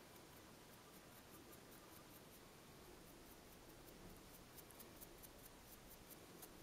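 Near silence with faint, light brushing: a soft nail-art brush sweeping loose glitter off a painted fingernail.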